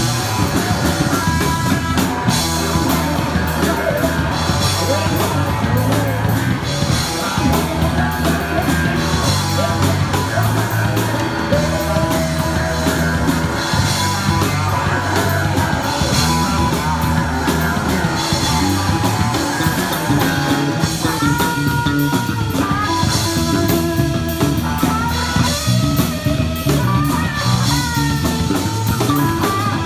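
Live rock band playing loudly: two electric guitars over a drum kit, with a melodic line sliding in pitch in the second half.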